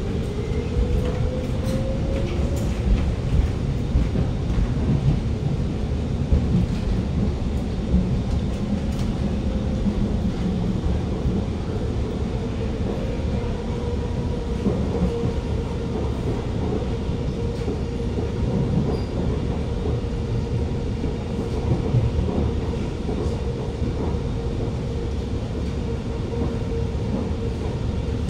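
Alstom Movia R151 metro train heard from inside the carriage as it pulls out and gets under way. A motor whine rises in pitch over the first few seconds while the train accelerates, then holds steady over a constant rumble of wheels on the track.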